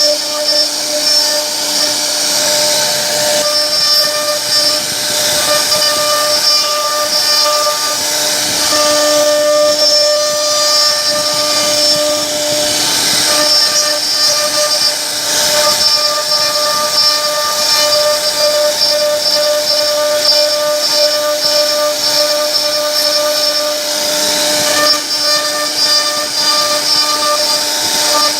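CNC router spindle running, a steady whine of several high tones over a harsh hiss that swells and eases now and then.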